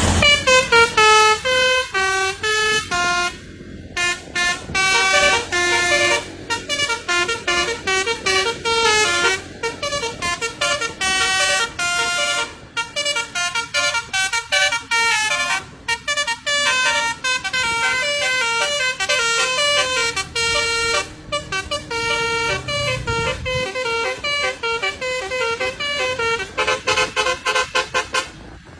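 Telolet basuri, a bus's multi-note musical horn, honking out a fast melody of short pitched notes with brief gaps between phrases.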